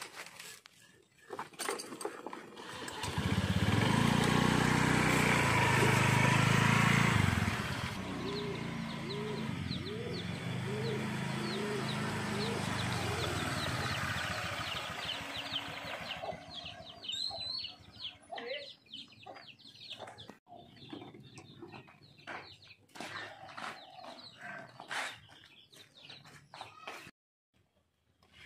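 Honda scooter's engine starting to run about three seconds in, loud for a few seconds as it pulls away, then running on more quietly and fading. Chickens cluck and small birds chirp over it, and scattered light clicks follow.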